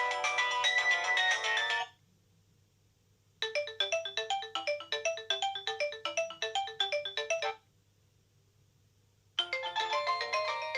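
Nokia 6230i mobile phone ringtones: one melody stops about two seconds in, and after a short pause a quick run of short electronic notes plays for about four seconds. After another pause a melody starts again near the end.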